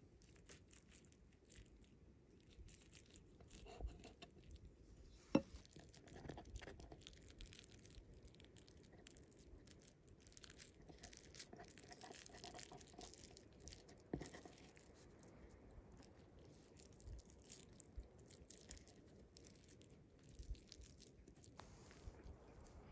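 Faint food-prep handling sounds: a knife cutting on a wooden cutting board and fingers pressing and squishing raw minced meat, with scattered small clicks and taps and one sharper click about five seconds in.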